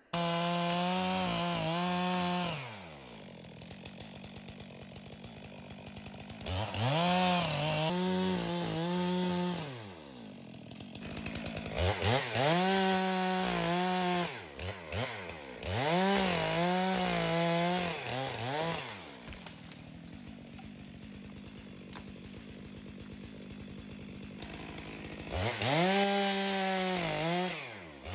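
Two-stroke chainsaw revved to full throttle in about five bursts of two to four seconds, its pitch rising and falling with each, then dropping back to idle in between while it cuts through brush and small limbs.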